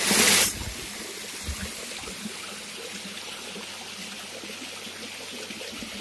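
Lake water spilling over a stone weir lip in thin falls, a steady trickling and splashing, louder for the first half second.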